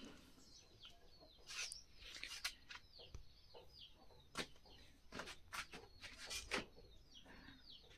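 Faint birds chirping, short high calls that sweep downward, repeated throughout, with a few scattered light clicks.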